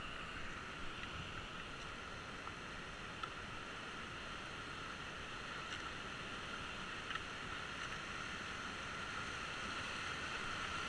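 Steady rush of a whitewater river rapid, growing slightly louder as the raft drifts toward it, with a few faint knocks.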